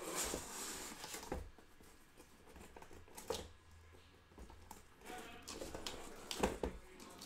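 Corrugated cardboard shipping case rustling and scraping as it is slid up off the shrink-wrapped boxes inside it, with a few knocks.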